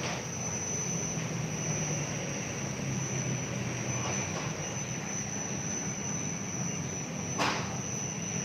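Electric spiral dough mixer running with its bowl empty: a steady motor hum with a thin high whine. A single sharp click sounds near the end.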